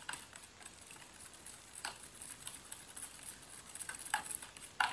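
Steel spoon stirring beaten eggs in a plastic bowl: faint, irregular clicks and scrapes of the spoon against the bowl, with a few sharper taps about two seconds in and near the end.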